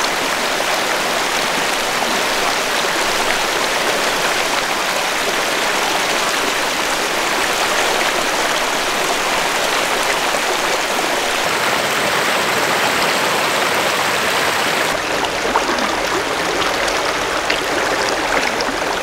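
Shallow mountain creek running over rocks close by, a steady even rushing. Its tone shifts slightly about three-quarters of the way through.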